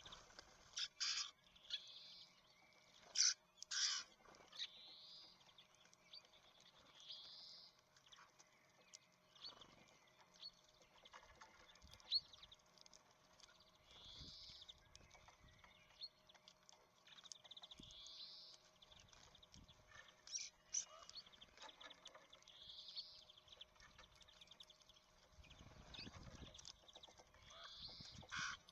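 Small songbirds at a seed feeder: a short, high call repeated every few seconds. Now and then there are sharp clicks and taps, loudest in the first few seconds and again near the end.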